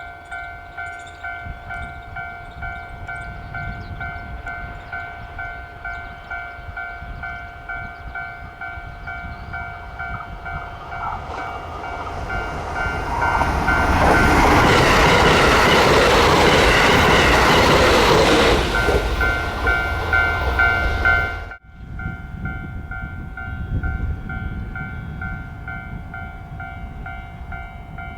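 Railway level-crossing warning bell ringing in a steady repeating pulse while a train approaches and passes; the train's running noise builds from about ten seconds in, is loudest for several seconds, and then cuts off suddenly, leaving the crossing bell still ringing.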